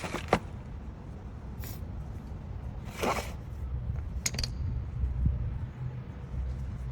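Old and new brake pads being handled and compared: a handful of short scrapes and clicks, including a broader scrape in the middle and a quick double click just after, over a low steady rumble.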